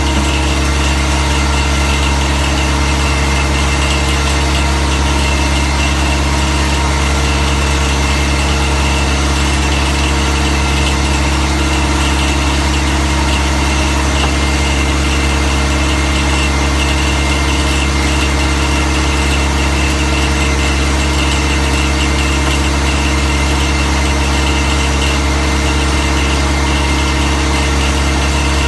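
Diamond drill rig's engine running steadily: a loud, unchanging drone with a deep low hum and several steady higher tones over it.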